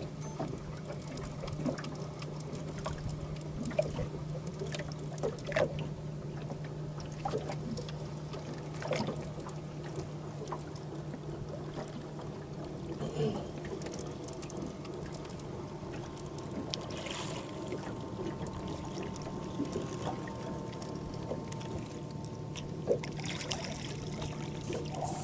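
Water trickling and lapping with a steady low hum underneath, and scattered small clicks as a baitcasting reel is cranked against a hooked catfish. A sharp splash comes near the end as the fish breaks the surface beside the boat.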